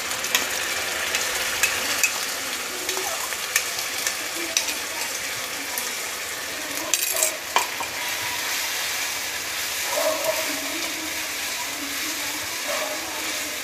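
Onion and ginger-garlic spice paste sizzling in oil in a stainless steel kadhai while a spatula stirs it, with scattered sharp taps and scrapes of the spatula against the pan.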